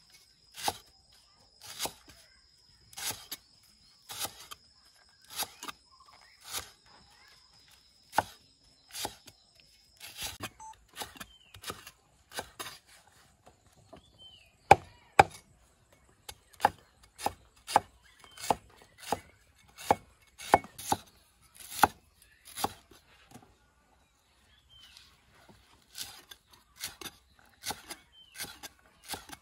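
Meat cleaver chopping vegetables on a thick wooden stump chopping block: sharp knocks of the blade into the wood, about one a second at first, then quicker at about two a second after some ten seconds, with a short pause near the end before lighter, faster strokes.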